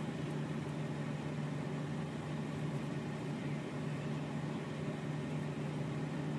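Steady low hum over an even hiss, with nothing else happening: the background noise of the recording while no one speaks.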